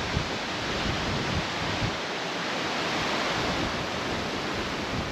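Wind: a steady rushing hiss with irregular low buffeting on the microphone.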